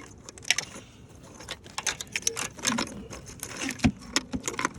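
Plastic wiring-harness connectors clicking and rattling as they are worked by hand in an engine bay, in irregular small clicks with a couple of duller knocks near the end.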